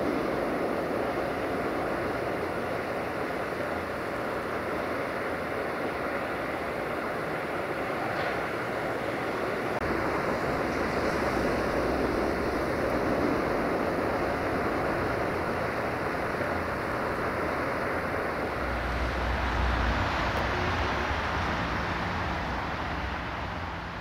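Steady rushing wind noise on the microphone, over the faint rumble of a train moving away in the distance. The low rumble grows stronger about three-quarters of the way through.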